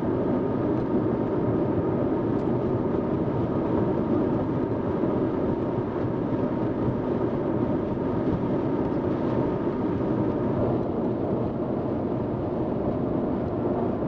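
Steady road and engine noise inside a moving vehicle: an even rumble with a faint constant hum, unbroken throughout.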